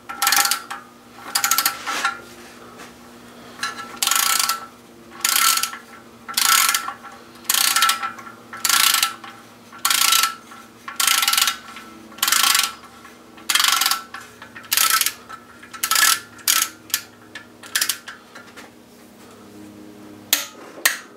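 Socket ratchet wrench clicking as a bolt is run down, in a long series of strokes about one a second. Near the end the strokes come shorter and quicker, then stop briefly before one last stroke.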